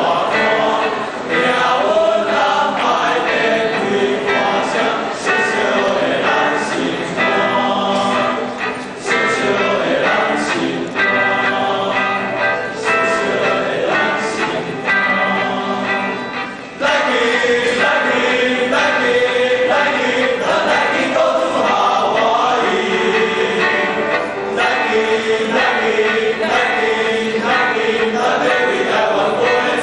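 A choir singing in parts, the voices swelling to a louder, fuller passage about two-thirds of the way in.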